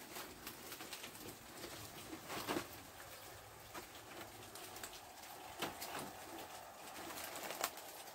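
A few faint, sharp clicks or knocks, scattered about two to three seconds apart, over a quiet room background.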